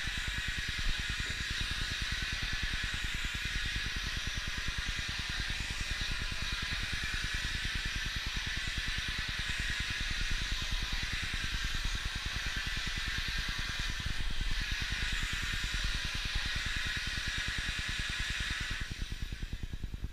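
Vacuum cleaner sucking air through its hose and floor wand over a wood floor: a steady airy hiss that cuts off near the end.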